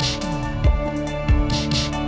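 Background music with a steady beat: a kick drum thumping about every two-thirds of a second under sustained instrument tones, with occasional hissy cymbal strokes.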